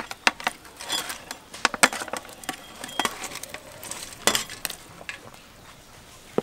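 A metal spoon scrapes and clinks against a metal baking tray and the rim of a pot as grilled fish pieces are pushed off into boiling soup. The clinks stop about five seconds in, leaving the soft bubbling of the broth.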